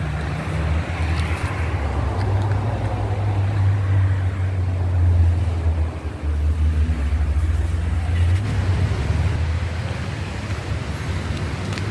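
Wind buffeting the microphone: a continuous, uneven low rumble.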